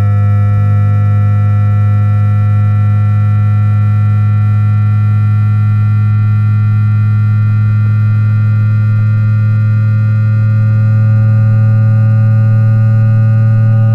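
The E2-1000 Series Shinkansen's 3-level IGBT VVVF inverter and traction motor during acceleration, picked up by an inductor coil rather than a microphone: in synchronous multi-pulse mode it gives several thin electronic tones that slowly rise in pitch with speed, over a strong steady low hum.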